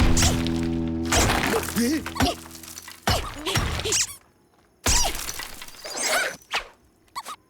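Cartoon soundtrack: music that fades out, then a string of crashes and shattering impacts mixed with short gliding squeaky cries.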